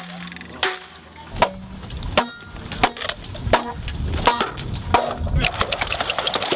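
Bamboo being struck: sharp wooden knocks about every 0.7 seconds. Near the end they give way to a fast rattle of clicks.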